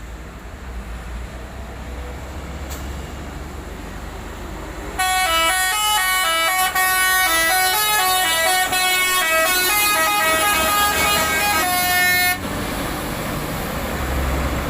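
Bus's multi-tone telolet horn playing a quick tune of changing notes for about seven seconds, ending on one longer held note. A low rumble comes before and after it.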